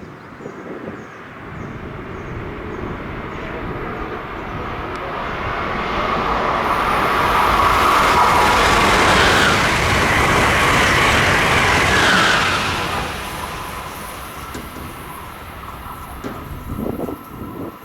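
Amtrak Acela Express electric trainset passing on the Northeast Corridor, a rush of wheel and rail noise that builds over several seconds, stays loudest for about five seconds, then fades away.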